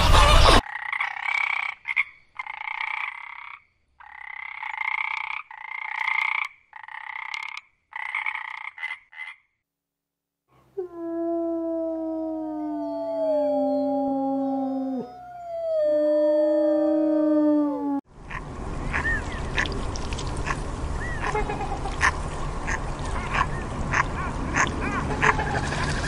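Grey wolves howling: long calls sliding slowly down in pitch, with several voices overlapping. Before the howling comes a row of short honking calls, about one a second, then a brief silence. After it comes a steady wash of noise with small clicks.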